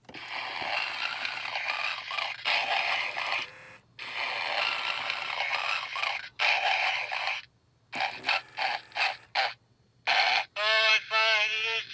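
Snoring Santa Homer Simpson talking figure playing recorded snoring through its small speaker: two long snores, each drawn in and let out, then a run of short choppy snorts. Near the end Homer's voice comes in briefly.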